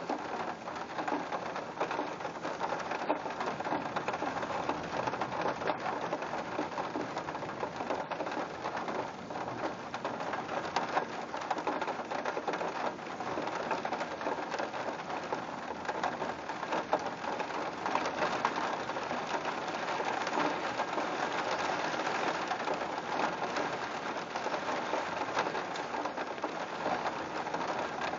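Steady rain of a thunderstorm, an even hiss of many drops falling without letup.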